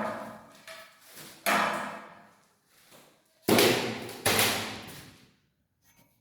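Four separate knocks or bangs, each dying away over about a second, the last two the loudest.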